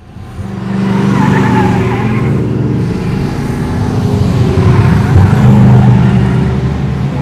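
Race car engines running loud at speed, with a wavering higher whine above them. The sound starts abruptly out of silence and builds over the first second.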